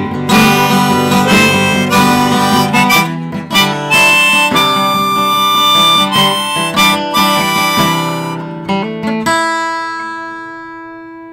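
Harmonica played in a neck rack over a strummed acoustic guitar, an instrumental break with no singing. About nine seconds in the strumming stops and a held chord fades out.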